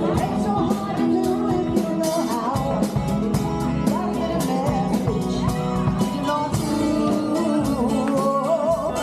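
Live band playing an upbeat song: a singer over drums and keyboard, with a steady beat.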